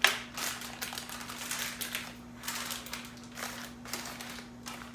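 A small frosting spreader scraping and pushing cookie dough around a parchment-lined baking pan, the parchment paper crinkling with it: a run of short scraping strokes, about two a second, beginning with a sharp knock. A faint steady hum runs underneath.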